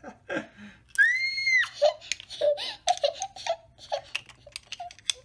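A child's high-pitched squeal about a second in, then giggling, with many sharp clicks of small round candies falling and skittering on a stone countertop.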